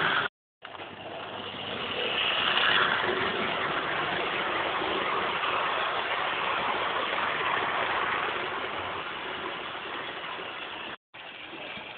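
00 gauge model train running on the layout: the electric motor whirring and wheels rumbling along the track. The sound cuts out completely twice for a moment, once just after the start and once near the end.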